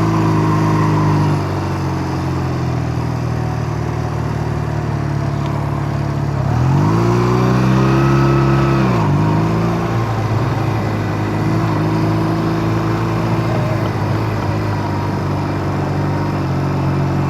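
Honda Rebel 250 motorcycle engine running under way. About six seconds in it revs up, rising in pitch for a couple of seconds, then drops suddenly at a gear change and settles back into steady running with wind and road noise.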